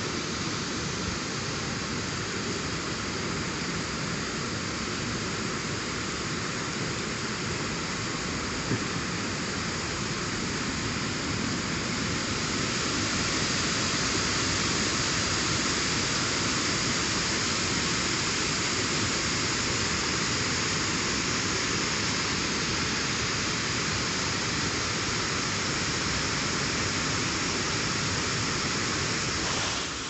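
Heavy rain pouring steadily, a dense even hiss that grows slightly louder partway through.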